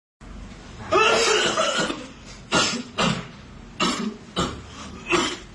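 A person coughing: one long coughing bout about a second in, then about five short single coughs spread over the following seconds.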